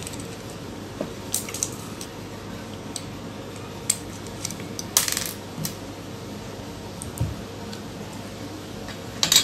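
Scattered sharp plastic clicks and scrapes as a small screwdriver pries apart a TV's plastic power-key and remote-sensor module, with a longer scrape about five seconds in and a quick run of clicks at the end.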